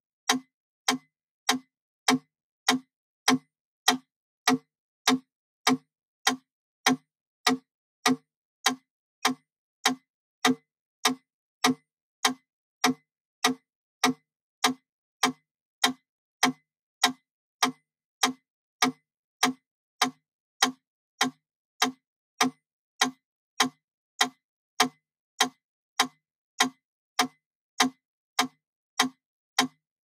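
Wooden mechanical metronome ticking at 100 beats per minute: a steady run of single sharp clicks, evenly spaced about six-tenths of a second apart, with silence between them.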